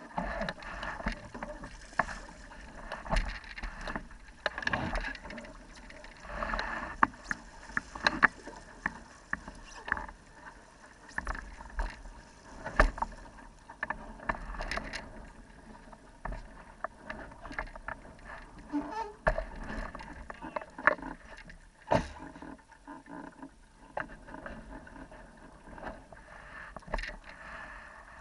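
Water splashing and slapping against the hull of a small sailing dinghy under way, with irregular sharp knocks.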